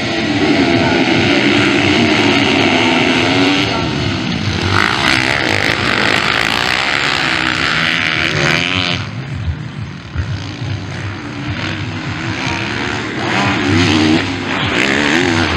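A pack of motocross bikes at full throttle off the starting gate, many engines revving and shifting up together. Later the pack spreads out, and near the end one bike's engine revs up and down as it rides past.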